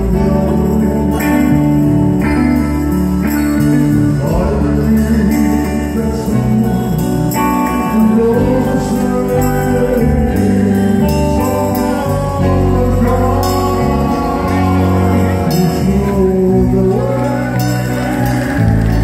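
Live band music: electric guitar over bass and drums, with a man singing.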